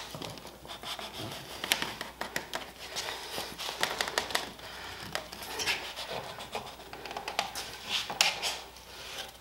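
A plywood router jig being slid over a snug-fitting wenge tenon and handled: wood rubbing and scraping on wood, with scattered small clicks and knocks.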